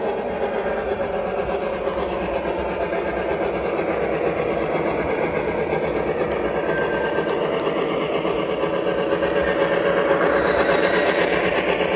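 Lionel O gauge Pennsylvania USRA 2-8-8-2 model steam locomotive running with its freight train on three-rail track: a steady mechanical whirr of motor, wheels and cars on the rails, getting louder about ten seconds in as the engine passes close.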